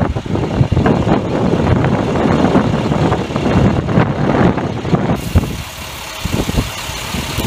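A large vehicle's engine running at idle, a steady low rumble. About five seconds in, the low rumble eases and a higher hiss takes over.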